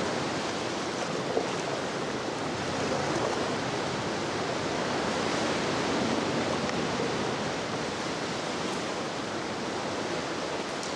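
Steady rush of sea surf and swell washing, swelling and easing slightly, with one brief tap about a second and a half in.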